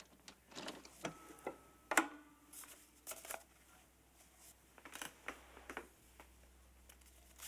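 Metal safe-deposit box being unlocked and opened: small clicks of the lock, then a sharp clack with a brief metallic ring about two seconds in. This is followed by the rustle of paper as a rolled document is taken out and handed over.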